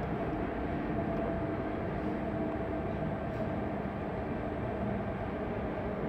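Inside a moving Tangara electric train: steady rumble of the wheels running on the track, with a faint steady whine over it.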